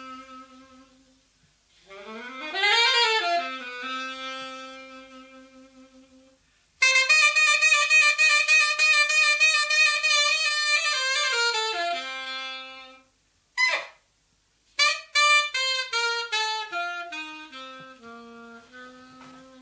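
Solo saxophone playing a slow, free melody. A quick upward run gives way to a long high note held with vibrato. After a short squeal, a falling run of short notes ends on a low held note.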